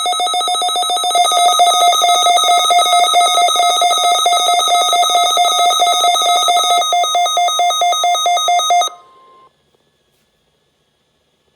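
NOAA weather radio receiver sounding its alert alarm for the Required Weekly Test: a loud, rapidly pulsing electronic tone that cuts off suddenly about nine seconds in.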